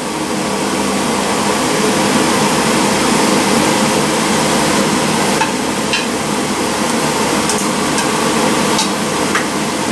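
Meat and vegetables sizzling on a Stone-Ware electric grill over the steady whir of a kitchen exhaust fan, with a few light clicks of metal tongs in the second half as vegetables are pushed off a plate onto the grill.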